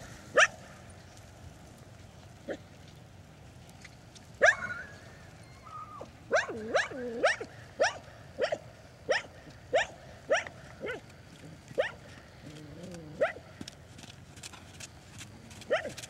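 A dog barking repeatedly in short, sharp barks: a few scattered ones at first, then a quick run of barks from about six to twelve seconds in, and a few more near the end.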